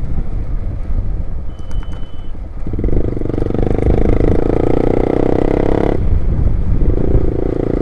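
Loud motorcycle being ridden, with wind rumbling on the microphone. About three seconds in, a strong steady engine drone comes up; it cuts off suddenly about six seconds in and comes back a second later.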